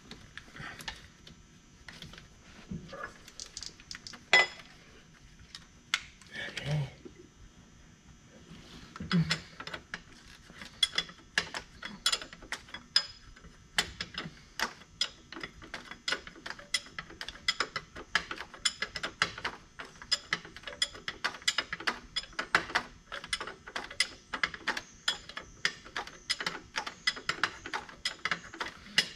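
Hand ratchet wrench clicking in rapid short back-and-forth strokes while turning a bolt on the engine, after a few separate clicks and knocks in the first seconds.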